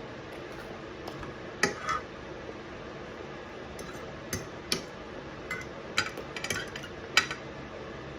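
Knife and fork clinking and scraping on a plate: a scattering of short, sharp clinks, the loudest about a second and a half in and near the end. Under them runs a steady fan hum.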